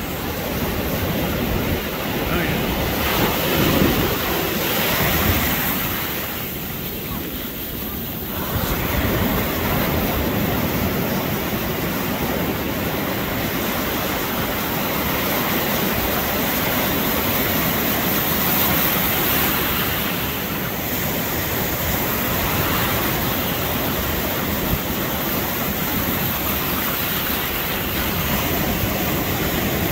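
Ocean surf breaking and washing up the beach, a steady rush that swells and eases as the waves come in.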